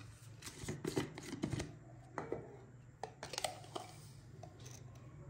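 Scattered light clicks and taps of kitchen utensils and containers being handled, several in the first two seconds and a few more later, over a faint low hum.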